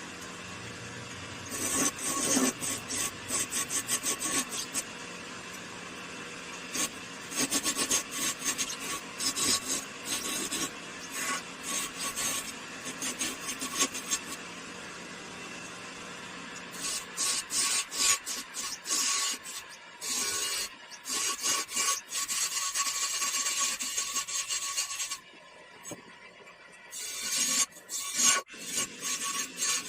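Wood being filed or rasped by hand in quick repeated strokes, in several runs with short pauses between them.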